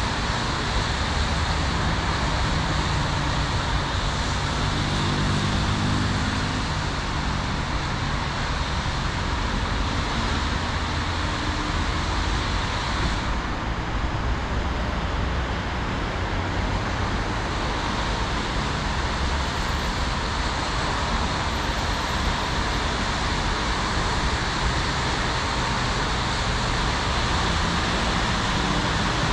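Road traffic on wet streets: a steady hiss of tyres on wet tarmac mixed with engines, one vehicle's engine hum passing a few seconds in.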